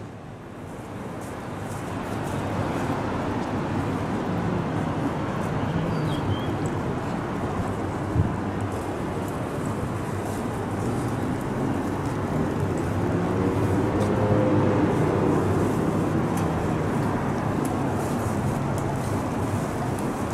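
Urban street ambience dominated by road traffic: a steady wash of engines and tyres, swelling as a vehicle passes in the second half. A single sharp knock sounds about eight seconds in.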